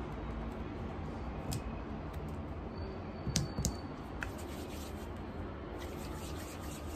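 Steady low background hum with a few faint clicks and taps from hands working soft modelling clay on a tabletop; two sharper taps about three and a half seconds in, as the rolled piece of clay is set down, are the loudest.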